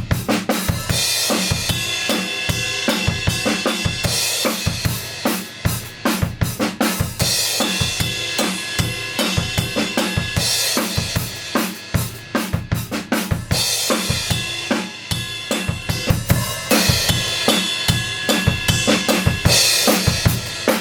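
Rock band playing an instrumental passage of an indie rock song, with the drum kit loudest: a steady kick-and-snare beat, hi-hat, and a cymbal crash every three or four seconds.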